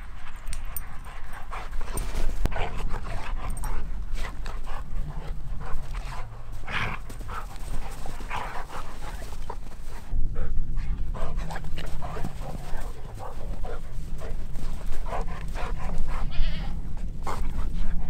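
Dog making short, repeated calls scattered through the stretch, over a steady low rumble.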